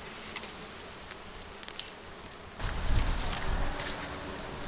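Honeybees buzzing around a wild comb as it is taken from a tree branch, with scattered clicks and rustles from the branches being handled. The sound gets louder about halfway through.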